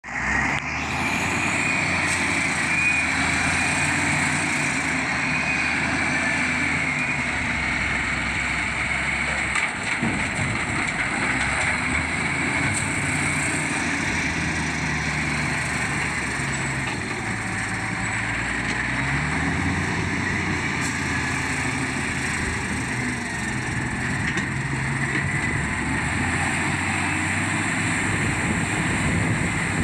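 Heavy machinery engine running continuously, its pitch rising and falling several times as the machine works.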